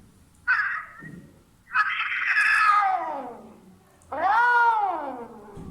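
A cat meowing three times: a short meow, then a long meow that falls in pitch, then one that rises and falls.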